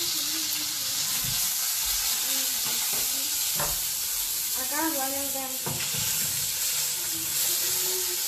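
Beef burger patty frying in a pan with a steady sizzle, with a few light clicks of a utensil against the pan. A short pitched sound cuts in about five seconds in.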